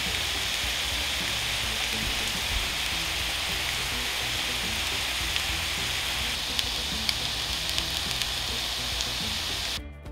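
Sausage links sizzling as they fry in a hot skillet, a steady hiss with a few small pops. The sizzling cuts off suddenly near the end.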